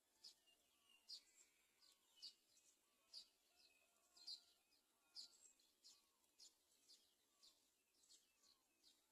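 Faint, short, high-pitched bird chirps, repeated about once or twice a second.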